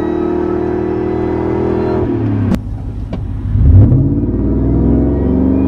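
2004 Ford Lightning's supercharged 5.4-litre V8 pulling at full throttle, heard from inside the cab, with a high supercharger whine over the engine note. About two seconds in the revs drop as the automatic shifts up. Two sharp clicks and a loud low thump follow, then the revs climb again.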